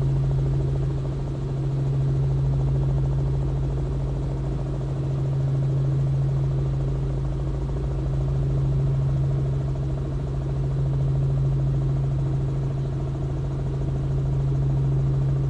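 Robinson R44 helicopter's engine and rotors running in a steady, even drone with a constant hum, slowing on final approach.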